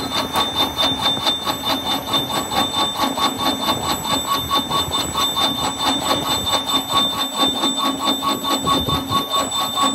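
Gear hobbing machine's toothed cutter cutting teeth into a metal gear blank, giving a fast, even rhythm of ringing metallic strikes as each cutter tooth bites.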